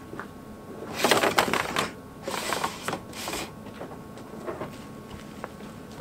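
Heavy red and black battery cables being pulled through, rubbing and scraping as they drag: one long rustling pull about a second in, then two shorter ones.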